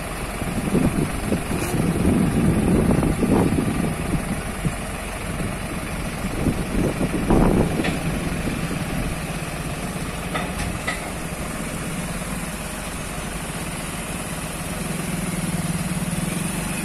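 Tractor engine running as the tractor drives slowly, a steady low hum with some uneven louder stretches in the first half, growing a little louder near the end.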